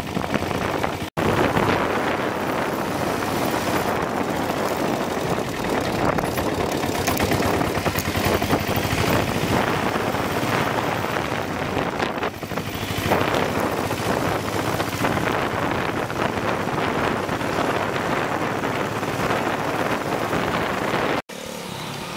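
Lombardini 325 cc single-cylinder diesel engine of a converted Royal Enfield Bullet running with a rapid, even diesel clatter of firing strokes. The sound cuts out for an instant about a second in and again near the end.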